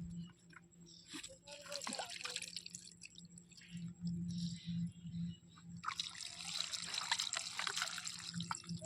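Water dripping and trickling out of a plastic-bottle fish trap just lifted from the water, growing heavier about two-thirds of the way through.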